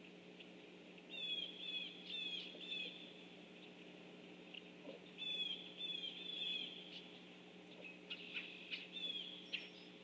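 Red-bellied woodpecker calling: two series of about four quick rolling calls, a few seconds apart, then a few short sharp notes near the end.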